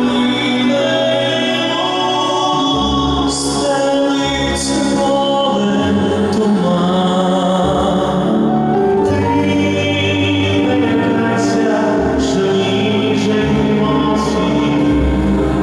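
A male vocal group singing a song in harmony through microphones, with long held notes.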